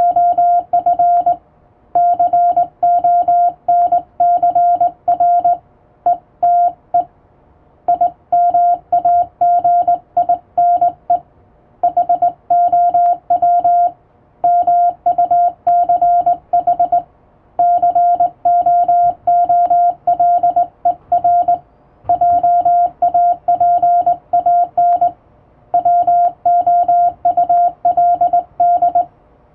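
International Morse code sent by hand on a straight key: a single steady beeping tone keyed on and off in dots and dashes, in groups with short pauses between them.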